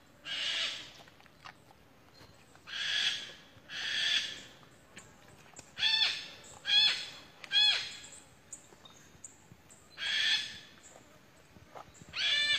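A pig squealing in distress: about eight separate shrill squeals with short pauses, three of them in quick succession near the middle.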